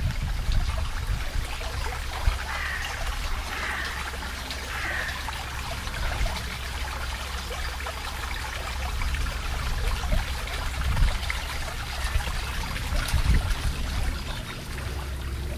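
Shallow brook running over rocks, a steady babble of flowing water.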